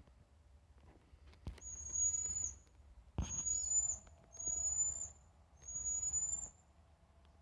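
A bird whistling four long, thin, very high notes, each about a second long, slightly rising and ending in a quick drop, with short pauses between. A sharp knock comes just before the first note and another at the start of the second.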